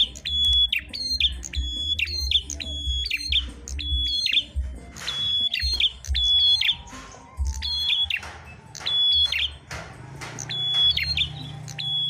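Caged songbird singing a rapid series of high, clipped, piercing notes, about two to three a second, in runs with short breaks.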